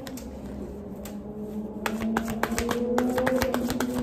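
Tarot cards being shuffled and handled by hand: scattered sharp card clicks, with a quick run of them about two seconds in. Soft, steady background music with held tones underneath.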